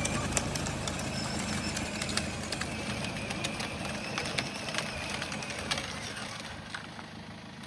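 Kids' electric ride-on car running, its motors giving a steady low hum with scattered small clicks, fading somewhat towards the end.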